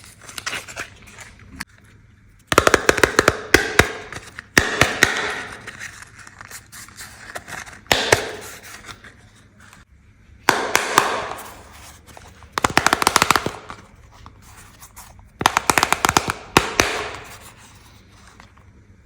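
Small plastic toy kitchen pieces and their packaging being handled, in about seven bursts of rapid clicking and clattering with short pauses between.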